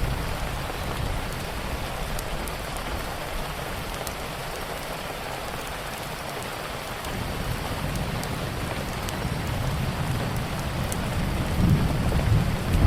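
Steady rain with a low rumble that thins out in the middle and swells again near the end, and faint scattered clicks.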